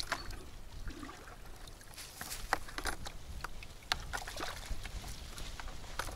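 Water splashing and dripping as fish are tipped from a bucket back into the lake and a wet keepnet is lifted over the bucket: a scattered series of short splashes and drips.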